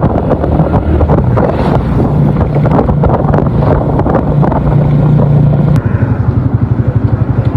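Honda CG125's single-cylinder four-stroke engine running under way, with wind on the microphone; about six seconds in, it drops to a steady, pulsing idle.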